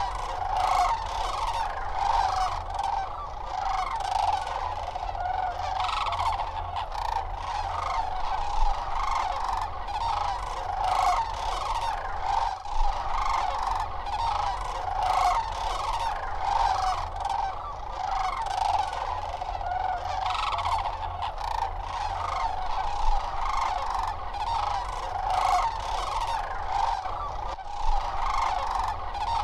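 A large flock of cranes calling: many overlapping bugling calls at once, a continuous chorus at a steady level.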